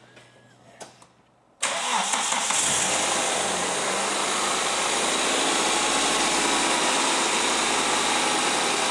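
Toyota 4A-FE 1.6-litre four-cylinder engine being started for the first time after a timing belt replacement. It catches suddenly about a second and a half in and settles into a steady idle.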